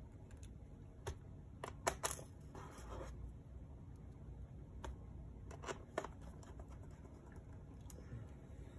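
Small screwdriver and screws clicking and scraping against a MacBook Pro's aluminium bottom cover as the cover screws are driven back in: a few sharp clicks and a short scratch.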